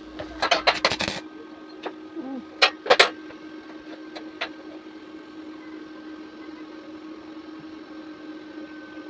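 A few sharp knocks and clicks, a quick cluster in the first second and two more about three seconds in, over a steady low hum.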